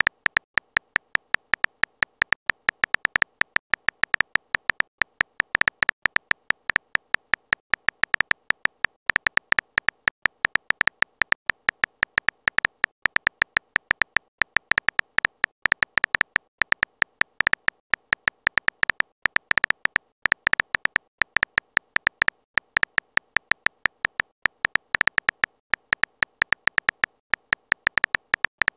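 Rapid phone-keyboard key-tap clicks as a text message is typed letter by letter. They come several a second, unevenly spaced with short gaps, and each click is short, sharp and slightly tonal.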